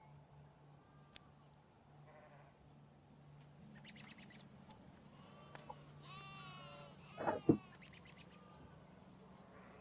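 Sheep bleating faintly, a few quavering calls, with two short, louder sounds about three-quarters of the way in. A steady low hum runs underneath.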